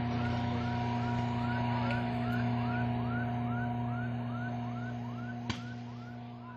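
Electronic siren or alarm: a short rising chirp repeating about twice a second over a steady hum, fading out near the end.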